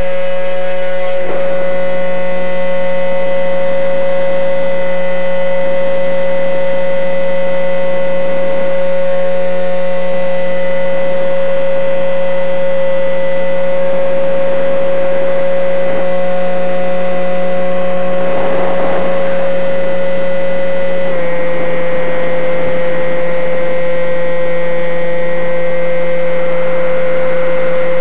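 Model airplane's motor and propeller heard from the onboard camera, running at a steady high whine. Around 19 seconds in there is a brief rush of noise, and a couple of seconds later the pitch drops slightly and holds there.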